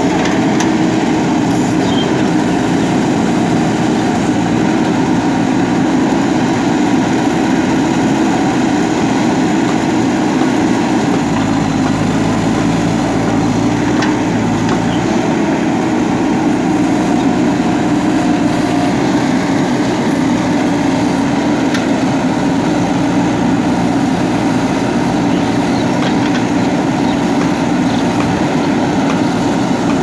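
JCB 3DX backhoe loader's diesel engine running steadily while the backhoe arm digs and swings, with a few light knocks. The low rumble grows heavier for a few seconds near the middle.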